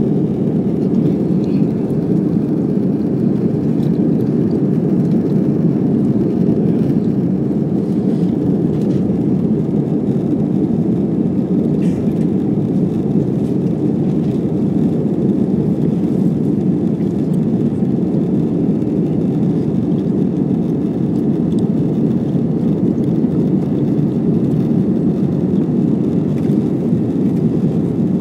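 Airliner cabin noise during take-off: a steady, loud rumble of jet engines and airflow, with no change in pitch or level.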